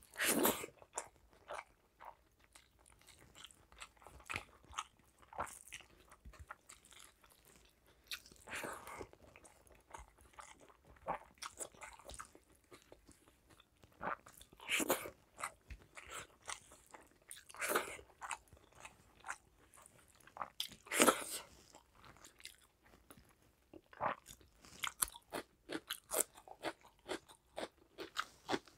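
Close-miked chewing and wet mouth clicks of someone eating rice and curry by hand, with a handful of louder mouth sounds several seconds apart.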